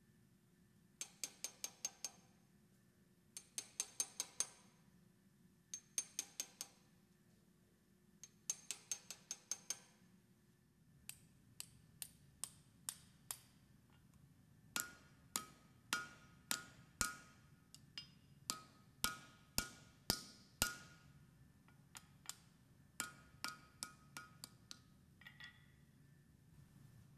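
Blacksmith's hammer striking steel on an anvil while forging an axe head, each blow ringing. Quick runs of four to seven blows come first; from about eleven seconds in the blows are slower and mostly single, about two a second.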